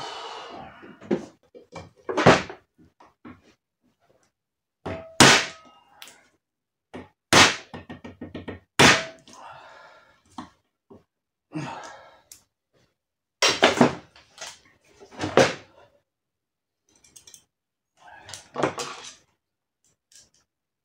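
Hammer blows on a hand impact driver working the screws of an aluminium motorcycle crankcase half: about eight sharp metallic strikes, spaced irregularly a second or more apart, each with a short ring.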